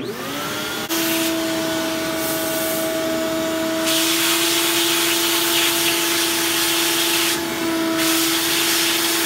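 Ridgid 6.5-horsepower shop vac switched on, its motor spinning up within the first second and then running with a steady whine, its nozzle pressed to a laptop's vent to suck dust out of the cooling fan. A stronger rush of air comes in for a few seconds midway and again near the end.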